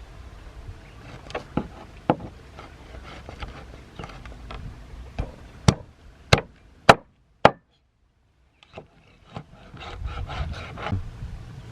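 Knocking and scraping on wood, with four sharp, loud strikes about half a second apart in the middle, then more rubbing and knocking near the end.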